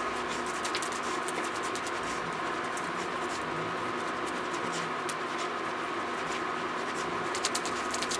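Spatula scraping and pressing crumbly marzipan mass around a non-stick frying pan in short, irregular scratchy strokes, over a steady hum. The almond-and-sweetener mass is being gently toasted and is starting to clump together.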